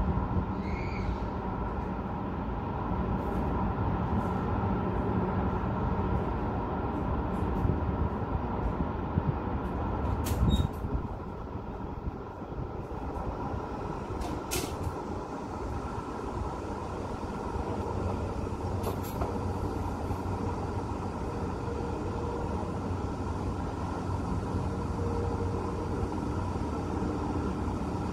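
Steady hum of city road traffic heard from a high window, a wash of engines and tyres with no single vehicle standing out. A short sharp knock about ten seconds in, and fainter clicks a few seconds later.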